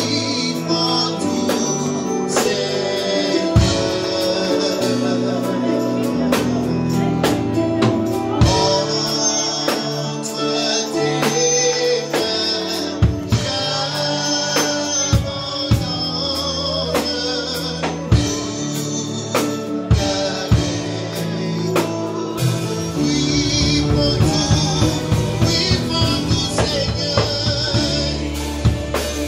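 Live church worship band playing slow music on a Yamaha Montage keyboard, electric guitar and drum kit, with singing over it.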